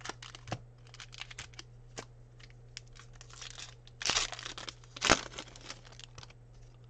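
A Fleer Ultra basketball card pack's wrapper being crinkled and torn open by hand: many small crackles, a longer rip about four seconds in and a sharp crackle about a second later.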